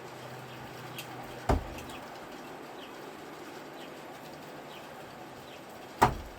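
Two thrown screwdrivers striking the target, one about a second and a half in and one near the end, each a single sharp hit. Faint bird chirps in the background.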